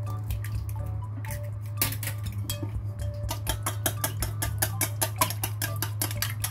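An egg cracked open into a stainless steel bowl, then chopsticks beating eggs in the bowl, rattling fast against the metal at about six strokes a second from about three seconds in. A steady low hum runs underneath.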